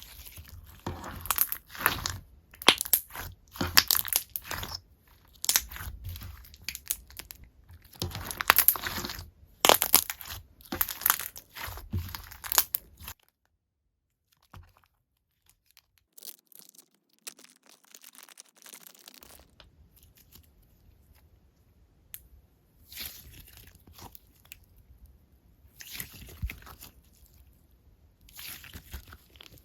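Slime being pressed, stretched and folded by hand, giving dense crackling, crunchy pops in bursts. About thirteen seconds in it drops to near silence for several seconds, then quieter crackling bursts resume.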